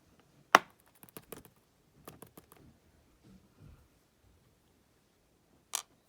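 Sharp small clicks and taps of metal tools against a padlock's core and pins while it is gutted pin by pin. One loud click about half a second in, a cluster of lighter taps over the next two seconds, and another loud click near the end.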